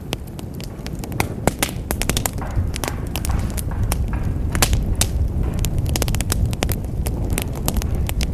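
Wood fire in a fireplace crackling, with many sharp, irregular pops over a steady low rumble.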